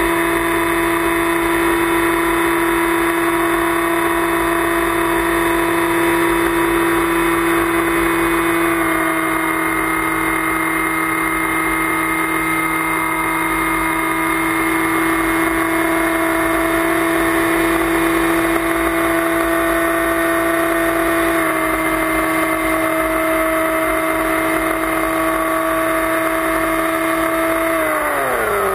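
Electric motor and propeller of an FPV flying wing, recorded by its onboard camera: a steady whine that shifts slightly in pitch twice, then drops sharply in pitch near the end as the throttle is cut for a dive, with a hiss of wind over the airframe.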